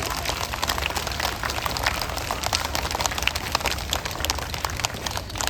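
Audience applauding: dense, irregular clapping, over a steady low hum.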